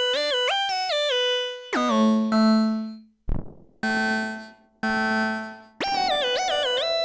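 Arturia MatrixBrute analog synthesizer playing a bright lead melody whose notes glide into one another. About two seconds in, it breaks into a few lower notes that each fade away, with a short noise sweep between them. The gliding lead returns near the end.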